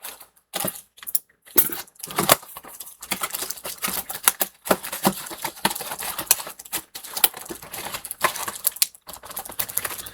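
Rapid clicking and crinkling of a doll's plastic and cardboard packaging being handled and cut open to free the doll.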